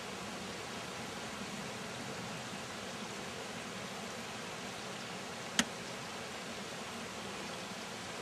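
Steady hiss of running stream water, with one sharp click about five and a half seconds in.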